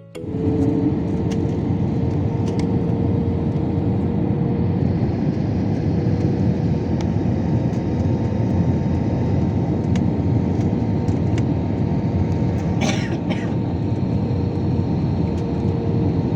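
Steady loud roar of a jet airliner heard from inside the cabin, with a constant hum throughout and two brief hisses about thirteen seconds in.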